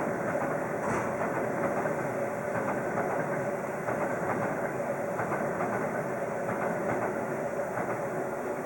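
Sleeper train running on the rails, heard from inside the carriage: a steady rumble of wheels and running gear with a steady hum through it.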